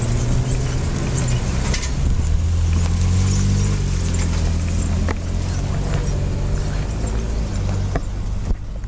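A motor vehicle engine running close by: a steady low hum that grows a little louder about two seconds in.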